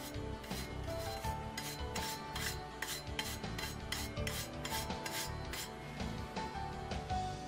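Green lemon peel grated on a fine metal grater: a run of short rasping strokes, about three a second, that stop about two seconds before the end.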